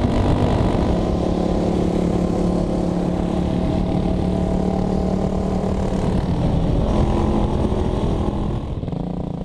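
Kawasaki KLX300 dirt bike's single-cylinder four-stroke engine running at a steady cruising speed, heard from the rider's helmet, with a rush of wind on the microphone. The engine note shifts slightly near the end.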